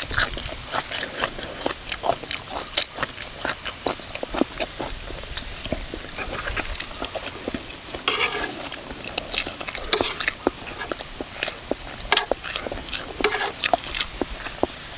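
Close-up chewing and crunching of a pounded cucumber salad: many irregular wet clicks and crunches, with a louder rustling swell of noise about halfway through.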